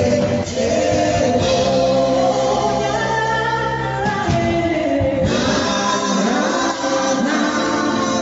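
Gospel music: a group of voices singing together over instrumental backing, with long held notes.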